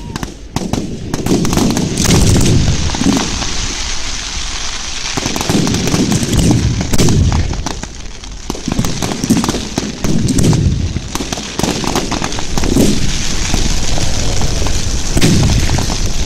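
Fireworks display going off in a rapid barrage: many sharp bangs and pops overlapping one another, with deeper booms every second or so.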